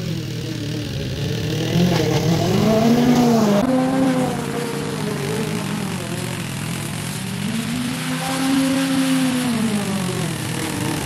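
Small petrol engine of lawn-care equipment running steadily, its pitch rising and falling in slow swells as the load on it changes.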